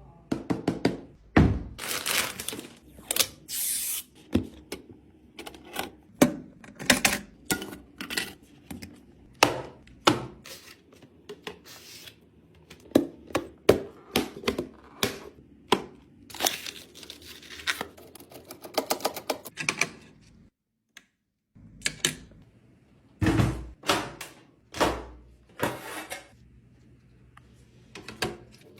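Computer parts being handled and fitted into a PC case: a string of clicks, snaps and thunks, with a short break of silence about three-quarters of the way through.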